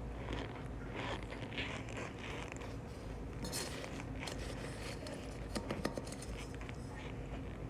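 Packed cornstarch being squeezed and pressed, giving a dry crunching squeak in short repeated bursts, with a few sharper clicks near six seconds in.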